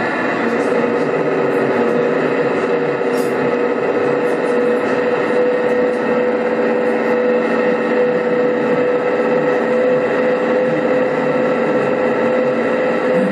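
Class 66 diesel locomotive sound from a model's ESU LokSound decoder, running steadily with a constant droning tone from about half a second in.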